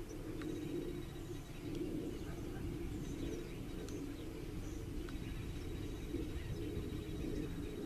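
Chickens, a rooster with his hens, murmuring soft, low, continuous clucks while they forage, with a few faint high chirps from small wild birds and a low rumble underneath.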